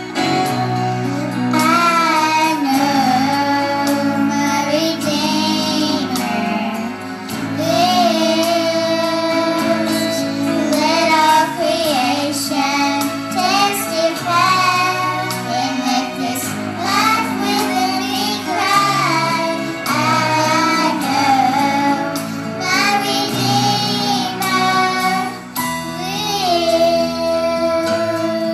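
Two young girls singing a song into handheld microphones over instrumental accompaniment.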